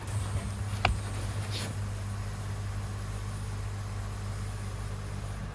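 A steady low machine hum, with two short clicks about one and one and a half seconds in.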